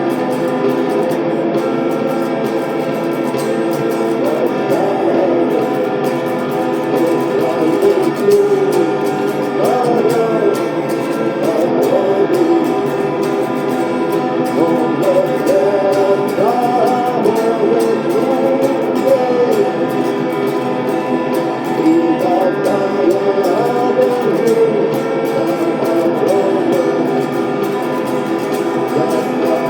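Electric guitar, a Homage HEG300 Stratocaster-style guitar with three single-coil pickups, played through a Nux Mighty 8BT mk2 combo amp, with a sung vocal melody over sustained chords.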